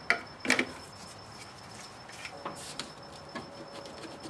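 Hard plastic clicks and scrapes as a fuel pump relay is worked out of its socket in a car's engine-compartment relay box: two sharp clicks in the first half second, then fainter ticks and rustles.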